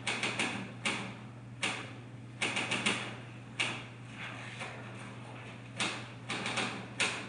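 Sharp clicks and knocks in irregular small clusters of two to four, with gaps of up to about two seconds between them. A steady low hum runs underneath.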